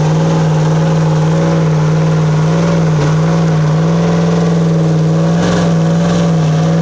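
Jeep Grand Cherokee's engine held at steady high revs while the SUV is stuck in deep mud and being pulled out on a tow strap. The pitch dips briefly twice, about three seconds in and again near the end.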